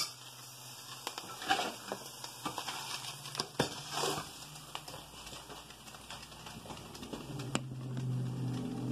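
Scattered light taps and handling noises as a glass serving bowl and a stainless steel skillet with a spatula are moved about. A low hum grows louder about seven seconds in.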